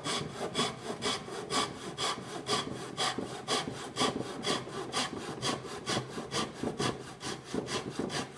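Flush-cut back saw (a small handsaw) cutting wood flush with a surface, in quick, even back-and-forth strokes of about four to five a second.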